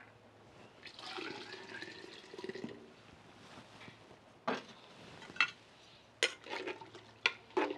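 Hot water pouring from a clay cazuela into a clay olla of broth for about two seconds. Then come a few sharp knocks as the clay dish is set back down and a ladle stirs the pot.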